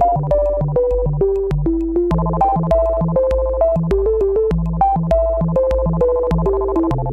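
Background electronic synth music with a steady beat and a bouncy, stepping synth melody.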